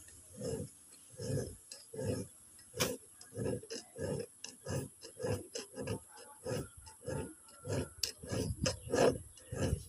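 A thin hand blade scraping back and forth in the slots between the copper segments of an angle-grinder armature's commutator, cleaning out the slots. Short rasping strokes in an even rhythm, about three every two seconds.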